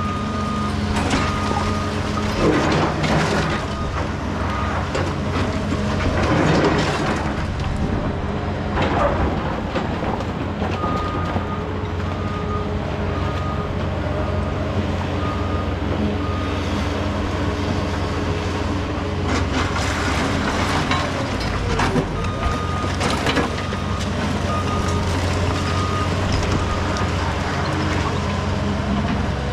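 Diesel engine of heavy equipment running steadily, with a backup alarm beeping in spells of several seconds, a little faster than once a second. Occasional clanks and knocks of metal and concrete come through, a few of them louder.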